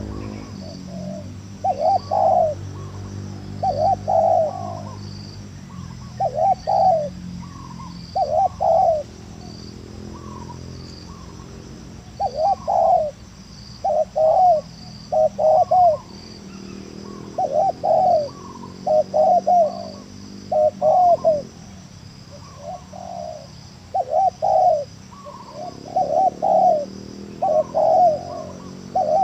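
Spotted doves (tekukur) cooing over and over in short clusters of two or three notes, every second or two, with a low steady hum underneath.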